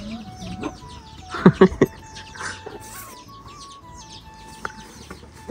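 A hen clucking, with two or three loud clucks about a second and a half in, over the continual high peeping of chicks.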